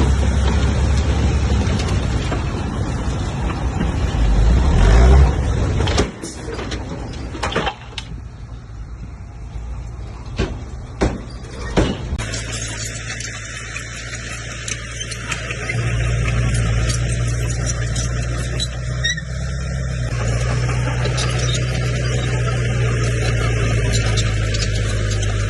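Heavy diesel engine of a bulldozer running. Its pitch rises about four seconds in and it cuts off sharply about six seconds in. A quieter stretch with a few sharp knocks follows, then a steady low engine drone takes over again and grows louder past the middle.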